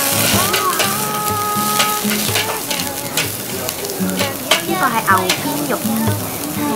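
Beef sizzling on the wire mesh of a tabletop charcoal grill: a steady hiss with scattered sharp crackles.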